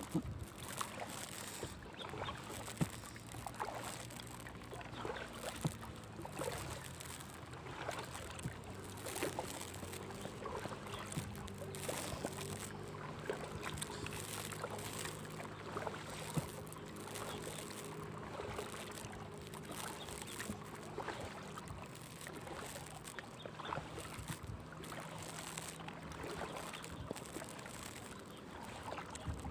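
Paddle strokes in calm water from a small coroplast canoe: repeated dips and light splashes, with water dripping off the blade. A faint low hum runs beneath most of it.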